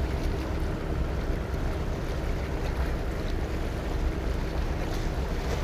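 Steady low wind rumble buffeting the microphone, over the wash of sea water against the rocks.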